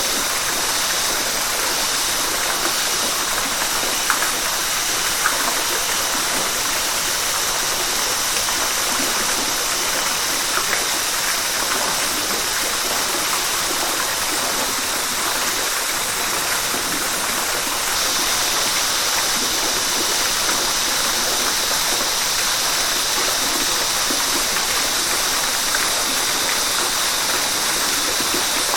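River water rushing and splashing steadily in an even hiss, with a few faint drips or splashes picking out here and there.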